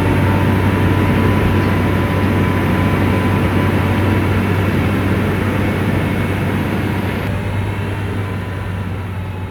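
Komatsu bulldozer's diesel engine running steadily, with a strong low hum and a thin steady whine above it. The sound slowly fades toward the end.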